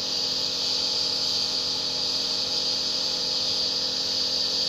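Compressor nebulizer running during a treatment: a steady motor hum with an even, high-pitched hiss.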